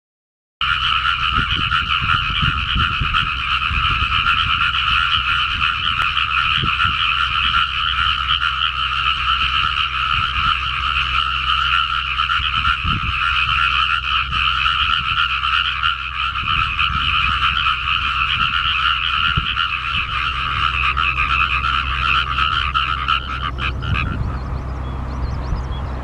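Many frogs calling together in a dense, unbroken breeding chorus in a newly flooded rice paddy, the calls blending into a steady wall of sound at two pitches. It starts about half a second in and thins briefly near the end before picking up again.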